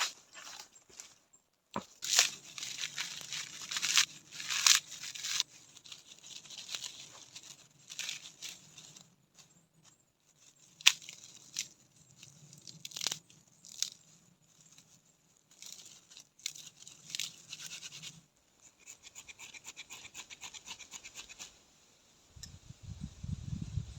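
Crunching and tearing noises in irregular bursts with sharp clicks, then a run of quick light scraping ticks, and a low rumble starting near the end.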